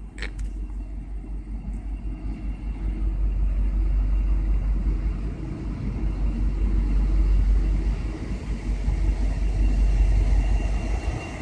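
Low rumble of an approaching V/Line diesel locomotive, N451, growing louder over the first few seconds and then holding steady. A short sharp click comes right at the start.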